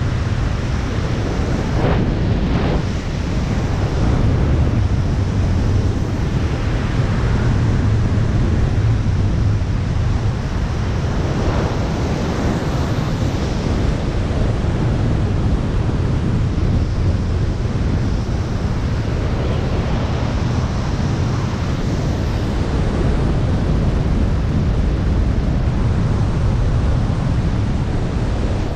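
Loud, steady rush of wind over the camera's microphone in wingsuit freefall, with the low rumble of air buffeting it.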